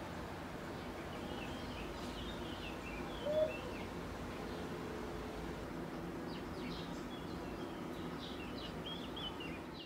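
Small birds chirping in short twittering phrases over a steady background hum, with one brief louder note about three and a half seconds in.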